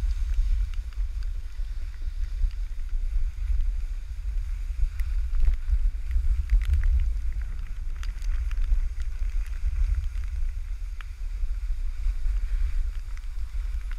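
Wind buffeting a GoPro camera's microphone while skiing downhill, a low, uneven rumble, with faint scattered clicks and scraping from the skis on the snow.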